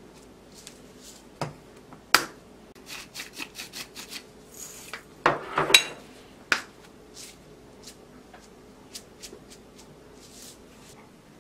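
Clicks and taps of a glass spice jar being shaken over toast to sprinkle crushed red pepper, with a louder cluster of knocks and clatter about halfway through. A faint steady hum runs underneath.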